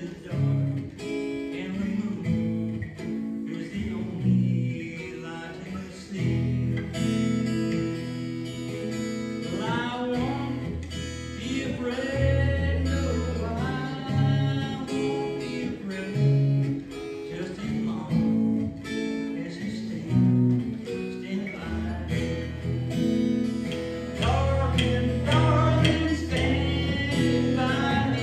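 A song performed live: acoustic guitar strummed and plucked under a voice singing.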